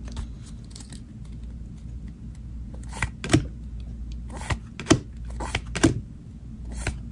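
A stack of 2022 Donruss football trading cards being shuffled by hand, one card at a time moved to the back, giving irregular sharp clicks of card stock.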